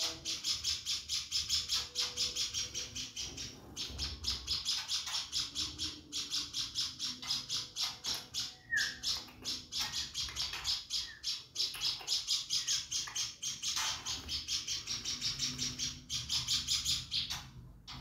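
A hand-fed young emprit (munia) begging with rapid, evenly repeated high chirps, several a second, pausing only briefly now and then.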